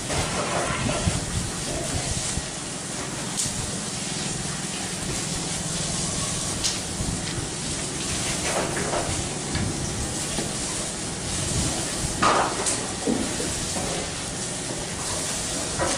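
Steady hiss with a low hum, and a few soft clicks and scrapes from a spoon scooping sticky geplak mixture (coarsely grated coconut cooked with sugar) out of a pot.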